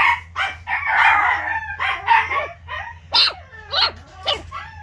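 Miniature Pinscher puppies, nearly four weeks old, squealing and yelping in a rapid string of short, high-pitched cries as they tussle together.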